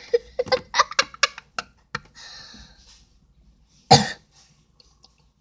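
A girl coughs once, loudly and sharply, about four seconds in, after a second or two of quick, clipped 'da da' vocal sounds and a short breathy hiss.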